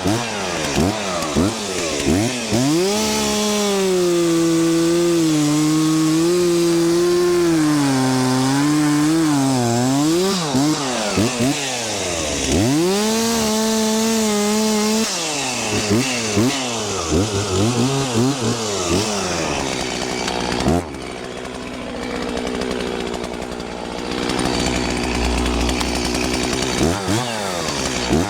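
Stihl 036 Pro two-stroke chainsaw revving in short bursts, then held at high throttle under load for several seconds, its pitch sagging and wavering as it cuts into the wood. After more quick revs it drops suddenly to a lower, quieter run about three-quarters of the way through, then revs up again near the end.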